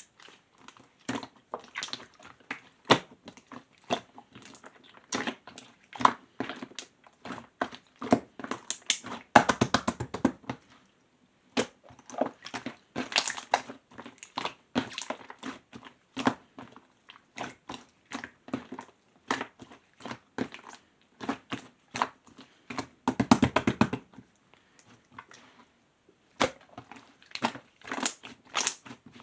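Clear slime being squeezed and poked by hand, making sticky clicks and wet pops at an uneven pace, with two short runs of rapid crackling, about ten seconds in and again a few seconds before the end.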